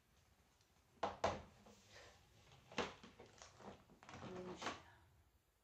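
Sharp cracks and knocks as the legs of a whole boiled snow crab are snapped and pulled off the shell and handled on a platter. The loudest cracks come in the first three seconds, with smaller clicks after.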